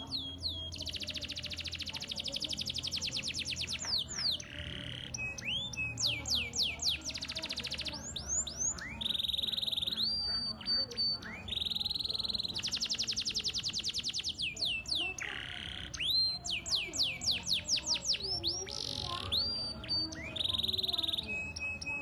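Domestic canary singing a long continuous song: fast rolling trills of rapid repeated notes alternating with swooping whistled notes and a few held high whistles, with barely a pause.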